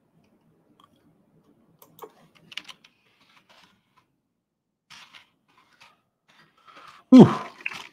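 Computer keyboard typing: scattered, faint keystrokes as a search term is entered. Near the end comes a loud exhaled "whew".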